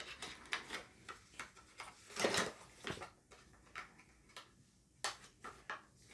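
Cosmetic packaging being handled: a run of small clicks and taps, with a longer, louder handling noise a little over two seconds in.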